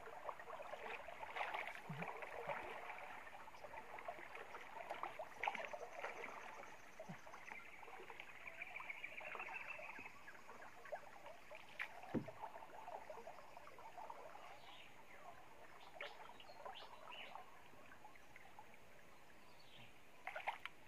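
Water splashing and lapping around a wooden canoe as it is paddled slowly through swamp water, with a single knock about halfway through.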